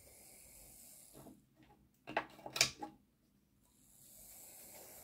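Hornby Class A4 Mallard OO gauge locomotive chassis with its newly fitted motor running along the track, a faint high whir. About two seconds in comes a short cluster of clicks and knocks, the loudest sound here, then the faint whir of the running chassis returns.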